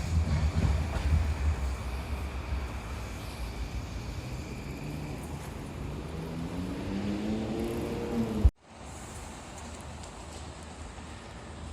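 Low rumble of a passing vehicle fading away, then a motor whine rising in pitch for about two seconds before the sound cuts off abruptly about eight and a half seconds in; a faint steady background follows.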